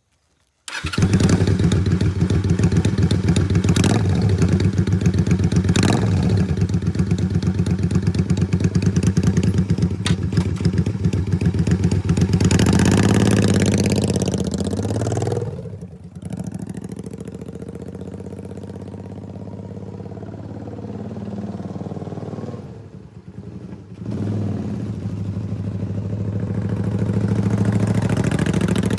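Honda Magna 250's V-twin engine running through an Easy Riders aftermarket silencer. It comes in suddenly about a second in and runs steadily. Around the middle and again later it is revved and let back down.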